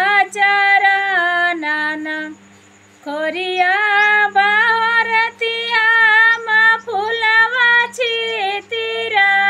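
A woman singing a Devi geet, a folk hymn to Kali Maiya, unaccompanied, in long held and bending notes, with a short break for breath about two seconds in.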